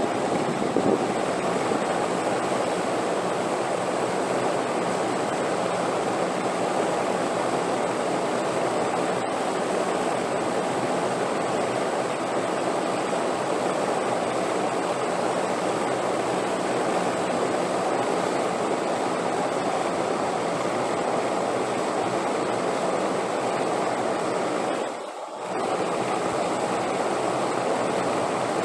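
Steady rushing wind, an even noise without pitch, dipping briefly about three seconds before the end.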